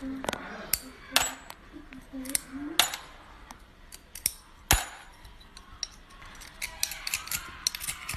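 Sharp cracks and clicks as the edge of a tinted sunglasses lens is snapped off piece by piece with pliers along a scored line. The snaps come irregularly, the loudest about a second, three seconds and five seconds in.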